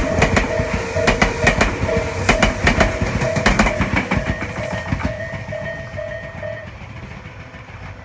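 Japanese railway level-crossing warning bell ringing at about three strikes a second, stopping near the end. Under it, the wheels of a Tobu limited express train clatter over the rail joints as it passes the crossing, until the last car clears about halfway through.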